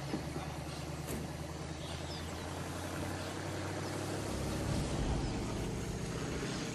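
A large truck's engine running steadily at low revs, swelling louder about four to five seconds in.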